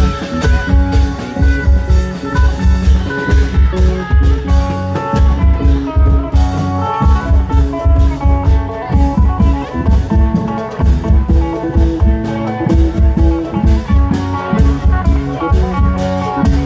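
Isan klong yao long-drum band music played loud through a PA sound system: a fast, heavy drum beat under a plucked-string lead melody.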